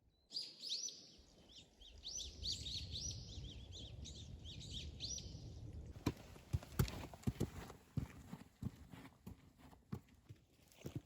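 Small birds chirping in quick repeated calls for about five seconds. Then a run of irregular sharp knocks and clicks.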